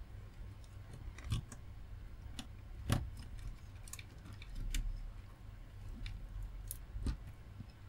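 Light, irregular clicks and ticks from hands working on an audio mixer's front panel, releasing parts held in with glue, with a few sharper knocks.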